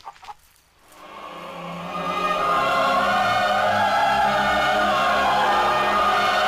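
Choral film score fading in about a second in and swelling into slow, sustained chords.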